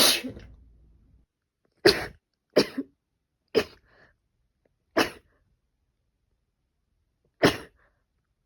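A woman with a cold coughing: six short, sharp coughs with silence between them. The first, at the very start, trails off longer. The rest come about a second apart, and the last follows after a longer pause.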